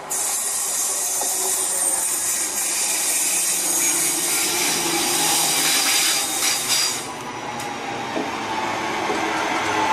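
Class 323 electric multiple unit running into the platform and passing close by: a loud rushing hiss of wheels on rail with thin high squealing tones, dropping in level about seven seconds in.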